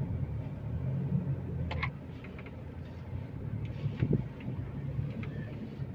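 Low in-cab rumble of a Toyota Hilux pickup driving slowly over a dirt off-road track, easing off about two seconds in, with a couple of light knocks from the truck.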